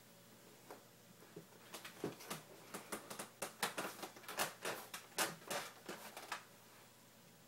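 Quiet room with a quick, irregular run of soft clicks and rustles for a few seconds in the middle.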